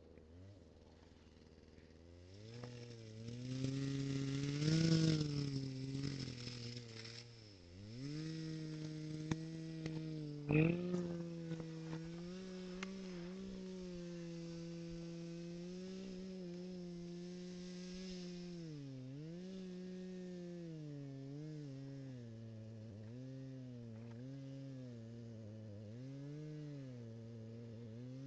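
A small engine running, its pitch dipping and rising again every few seconds, coming in about two seconds in. A single sharp knock about ten seconds in.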